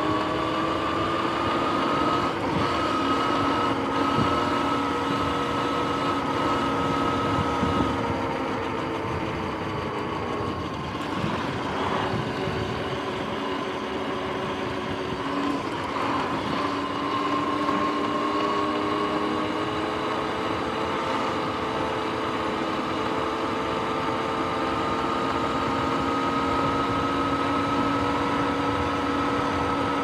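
Sur-Ron X electric dirt bike's motor and drivetrain whining under way, a cluster of steady tones whose pitch follows road speed. The whine sags and fades about a third of the way in, then climbs back, over steady tyre and wind noise.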